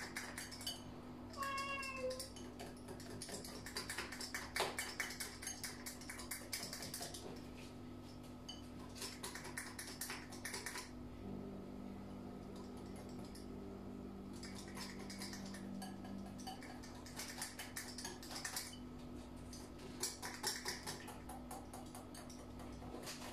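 Batter stirred by hand in a bowl, the utensil clicking and scraping against the bowl in quick bursts that stop and start, to break up lumps. A cat meows once, briefly, about a second and a half in.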